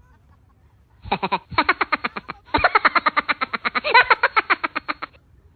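An added sound effect: a fast run of pitched pulses, about ten a second, starting a second in and lasting about four seconds with a brief break, then cutting off suddenly.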